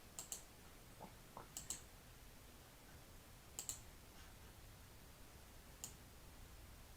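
Sharp computer clicks in a quiet room, mostly in quick pairs, four times a second or two apart.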